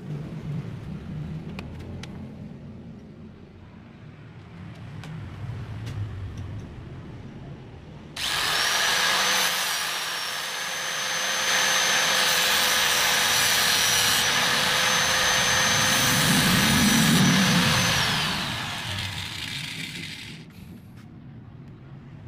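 Electric angle grinder switched on about a third of the way in. It runs with a steady high whine while its abrasive disc grinds a small strip of wood. Near the end it is switched off and the whine falls as it spins down, fading out over about two seconds. Before it starts there is only a low rumble with a few faint clicks.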